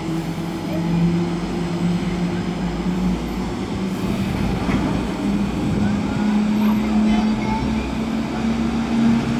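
Doppelmayr telemix detachable gondola lift running at its top station, with a cabin travelling on the haul rope into the station: a steady mechanical drone whose low hum shifts up in pitch about halfway through.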